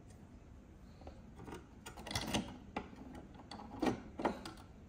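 Small plastic wire connectors being unplugged and a power supply board being handled: a scattering of light clicks and taps, the loudest two near the end.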